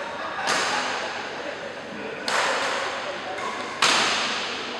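Badminton rackets striking the shuttlecock: three sharp hits about a second and a half apart, the last the loudest, each ringing out in the large hall.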